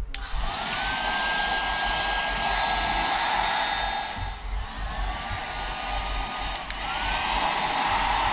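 Hand-held hair dryer switched on and blowing steadily, its motor whine rising as it spins up. The pitch sags and climbs again about halfway through and again near the end.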